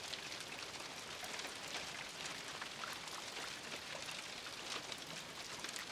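Steady rain on a car's roof, heard from inside the car, a constant hiss dotted with many small drop taps.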